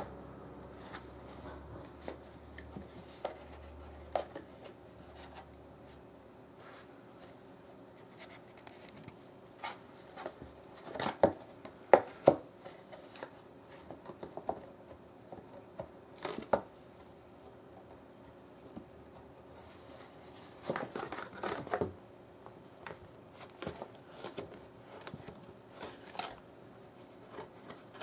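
Siamese cat scratching, batting and knocking an empty cardboard cigarette-tube box: scattered scrapes and sharp taps, loudest in a cluster a little before the middle and in another about three-quarters of the way through.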